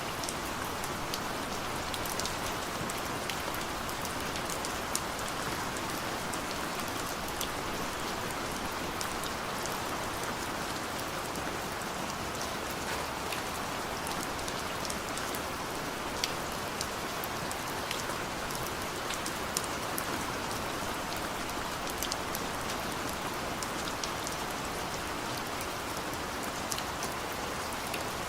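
Heavy rain falling steadily, a continuous hiss with many sharp individual drop ticks scattered through it.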